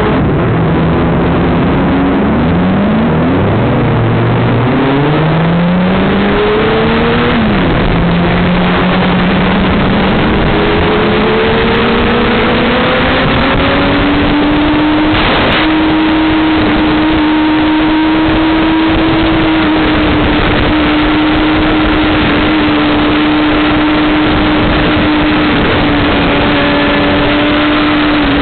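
A 2007 Honda CBR600RR's inline-four engine at speed on a race track. The engine's pitch climbs and drops several times as it changes gear, then rises and holds a steady high note for a long stretch before easing off near the end. A constant loud rush of wind noise runs under it, with one brief knock about fifteen seconds in.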